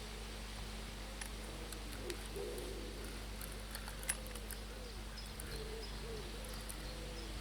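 Pigeons cooing, a run of soft rising-and-falling coos that carries on without a break, with a few faint ticks over a steady low background hum.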